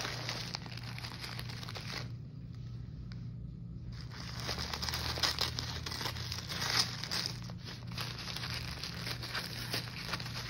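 A package being opened by hand: packing tape tearing and tissue paper crinkling and rustling, in irregular spells that grow busier after about four seconds, with a few sharper rips.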